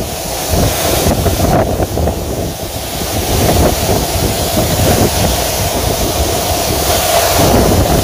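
Waterfall falling onto rocks close by, a loud, steady rush of water, with spray and wind buffeting the microphone.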